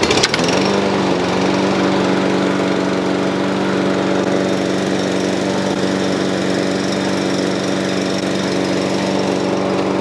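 Toro Recycler Vortex lawn mower's Briggs & Stratton single-cylinder engine catching on the pull. It revs up over the first second, then runs steadily at constant speed. The sign of a no-start cured by a rebuilt carburetor and fresh fuel.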